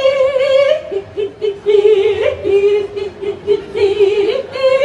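A woman singing long, held notes with vibrato, one note after another, with little or no accompaniment.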